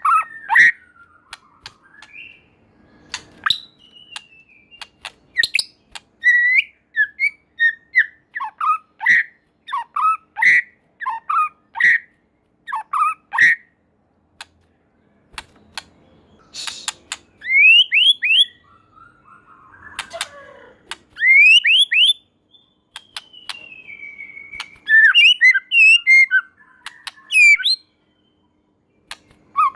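White-rumped shama (murai batu) singing: a varied run of loud whistled notes, sharp clicks and quick upward-sweeping calls, in phrases broken by short pauses.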